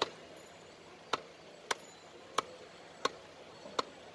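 A heavy butcher's knife chopping catla fish into pieces on a wooden log chopping block: six sharp strikes, roughly one every two-thirds of a second.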